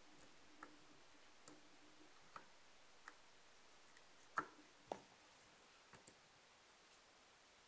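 Faint, uneven small clicks of a small screwdriver working the purge screw back into a PVS-14 night vision monocular's housing. The two loudest come about four and a half and five seconds in.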